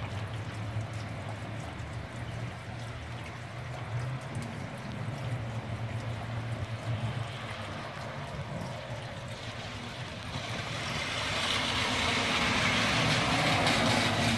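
Steady rain falling on a lawn, concrete and a wet street. A louder hiss builds over the last few seconds and then drops away.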